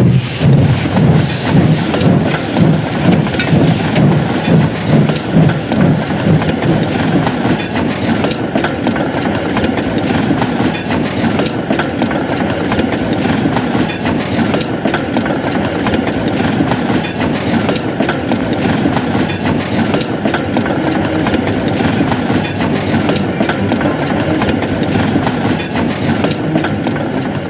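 Steam locomotive running at speed: heavy rhythmic chuffing in the first few seconds merges into a steady rush, with rail clicks over it.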